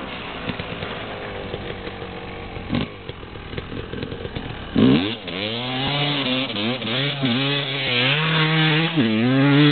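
Dirt bike engine running, fairly steady at first, then revving hard from about halfway, its pitch climbing and dropping several times as the bike is ridden up a sand slope under load.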